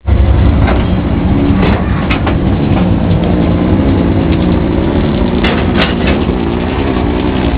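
Diesel locomotive engine idling, a loud steady low rumble, with a few sharp metallic clicks about two seconds in and again past the five-second mark.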